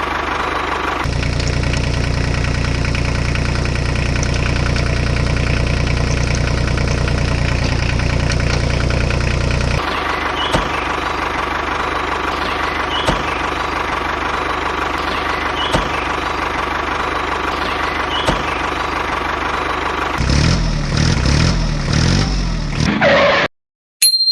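RC model tractor running with a steady engine-like drone. A heavier low rumble sets in about a second in and drops away after about ten seconds, and the sound wavers near the end before cutting off suddenly.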